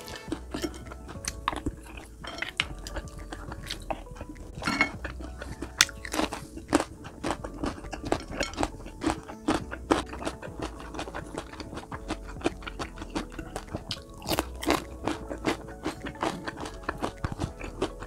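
Close-up mukbang eating sounds: repeated sharp crunching bites and chewing of crispy fried food, with light background music underneath.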